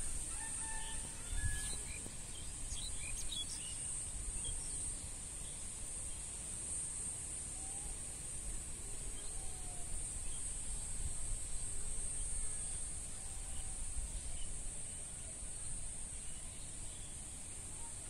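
A steady, high-pitched drone of insects such as crickets, with a few short bird chirps in the first few seconds and a low wind rumble underneath.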